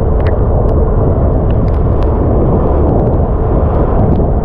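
Steady, loud rush of wind buffeting a handlebar-mounted GoPro Hero 8 on a Honda Beat scooter riding along a wet road, the noise heaviest low down, with a few faint ticks.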